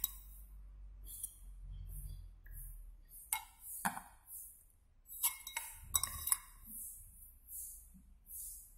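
A stainless-steel tea strainer knocking against a glass bowl while juice is strained through it: a handful of light metal-on-glass clinks, bunched in the middle, spaced unevenly.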